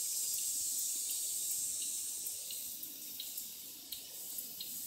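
Steady high-pitched insect chorus, easing slightly in level toward the end, with faint scattered ticks.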